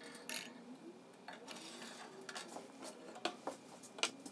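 Scattered light clicks and ticks of a capacitor being handled and stood upright on a metal reflector pan inside a toaster oven, with a sharp click right at the start and fainter irregular ticks after it.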